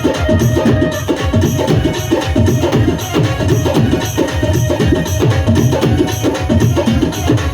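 Loud music with a steady, driving percussion beat.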